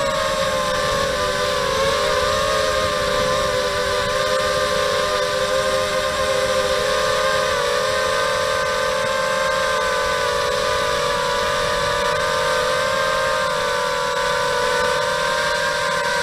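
Brushless motors and propellers of a 250-size FPV racing quadcopter, heard close up from its onboard camera: a steady, several-toned whine with a hiss of propeller wash. The pitch wavers a little as the throttle changes.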